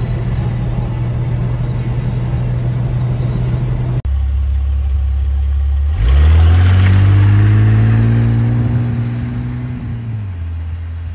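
Opel Commodore A 2800 GS 2.8-litre straight-six with automatic gearbox. It is first heard as a steady hum from inside the cabin while cruising. About four seconds in, it is heard idling from outside, then about two seconds later it pulls away under hard acceleration: the engine note rises sharply, keeps climbing, then drops and fades as the car drives off.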